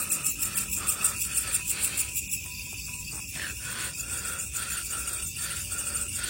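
Night insects chirping in rapid, even pulses, several at different pitches at once, the pulsing fading a little about two seconds in.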